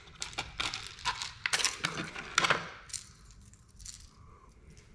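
Stiff plastic lure packaging being opened and handled, a run of sharp crackles and clicks for about two and a half seconds, then only faint handling noise.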